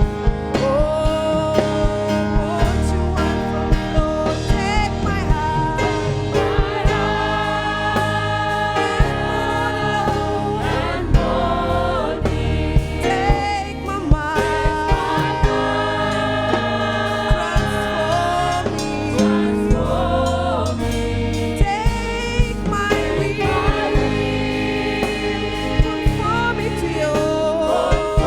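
Gospel choir and worship band performing: voices singing without clear words over a steady band accompaniment, with regular drum hits keeping the beat.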